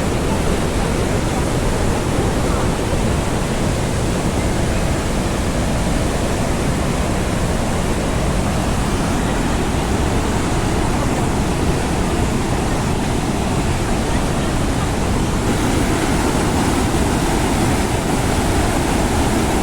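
The Rhine Falls' water pouring over the falls: a steady, loud rush of noise that does not change.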